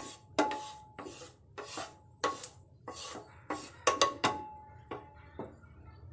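Wooden spatula scraping and spreading oil and spice paste across a non-stick double-sided grill pan, about two strokes a second, some with a brief ringing from the pan. The strokes stop about five and a half seconds in.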